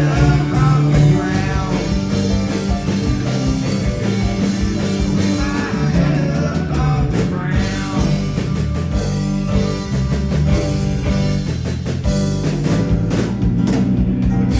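Rock band playing live: electric guitar, bass and drum kit, with a singer's voice coming in near the start and again about halfway through.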